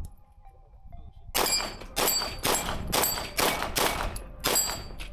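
Seven rapid 9mm pistol shots from a Fusion Firearms XF-Pro, fired about half a second apart, starting about a second and a half in.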